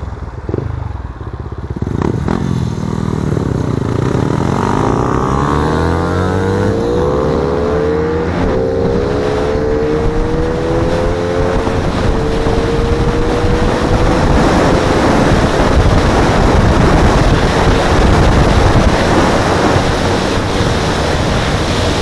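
Tuned racing motorcycle engine accelerating hard, its pitch climbing steeply, breaking at a gear change about eight seconds in, then climbing more slowly and holding high. Wind rushing over the microphone grows louder as speed builds.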